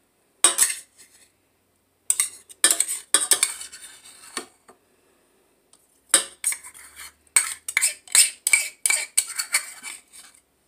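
A metal utensil scraping and knocking peanut butter off against a stainless steel mixing bowl and the wire whisk of a stand mixer. Irregular clinks and scrapes come in clusters, with a short pause near the middle.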